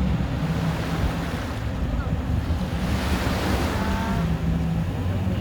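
Sea waves breaking and washing up the beach, over a low wind rumble on the microphone; the hiss of a wave's wash swells about three seconds in.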